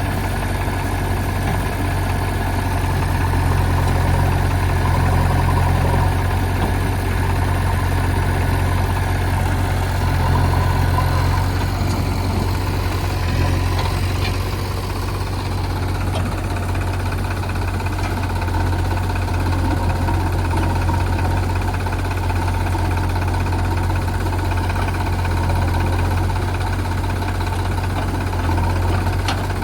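A heavy diesel engine of the earth-moving machinery runs steadily with a deep hum, its note shifting slightly about halfway through.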